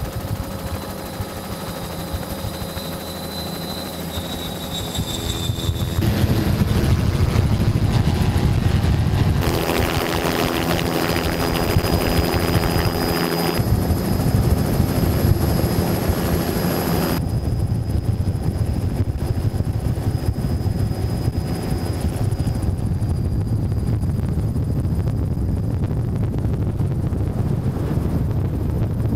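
Turbine-powered offshore race boats running flat out: a steady high turbine whine over a low engine rumble and water rush, with a helicopter's rotor mixed in. The sound jumps in level and character at several cuts, loudest through the middle stretch.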